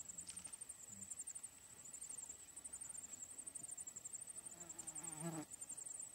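Insects trilling in a steady, high-pitched, rapidly pulsing chorus. A brief, lower pitched call sounds about five seconds in.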